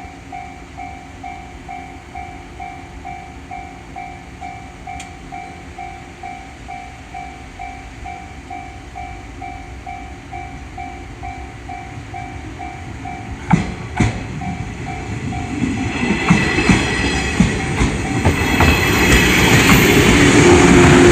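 Japanese railroad crossing warning bell ringing its evenly repeated 'kan-kan' ding, about two and a half times a second. Two sharp knocks come about two-thirds through. Then a JR 103 series electric train approaches and grows louder, its wheels clacking over the rail joints.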